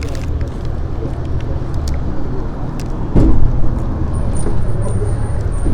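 Steady low outdoor rumble, with a louder bump about three seconds in and a faint high-pitched whine near the end.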